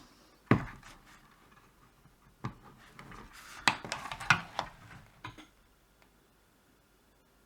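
Small tools and electronic parts being handled on a workbench: a sharp knock about half a second in, a few scattered clicks, and a cluster of light clicks and clatter in the middle, then quiet.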